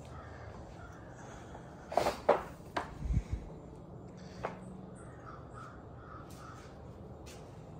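A bird calling three times in quick succession about two seconds in, followed by a low thump, over faint background noise.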